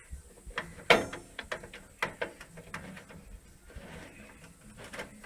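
Hand tool clicking and tapping on metal as the bolts holding a microwave's magnetron are undone: irregular sharp clicks, a few a second, with one louder knock about a second in.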